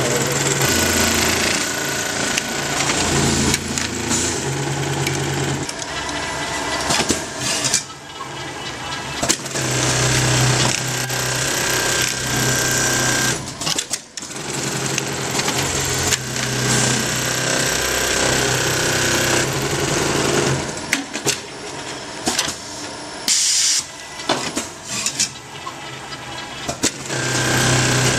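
Industrial sewing head of a Jooke automatic pocket-setting machine stitching at speed, a fast steady mechanical rattle that stops briefly twice. For a few seconds near the end it runs quieter, broken by short clacks, before running full again.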